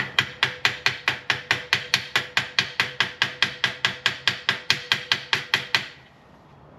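Rapid, evenly spaced hammer taps on a welded steel frame, about four to five strikes a second, with the metal ringing steadily underneath. The taps stop abruptly a little before the end.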